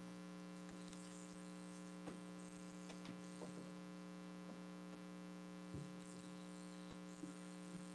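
Steady low electrical hum from the studio audio line, with a few faint small clicks and taps scattered through it.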